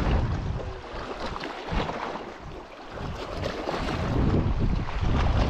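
Wind buffeting the microphone: an uneven, rumbling rush that eases off briefly about halfway through.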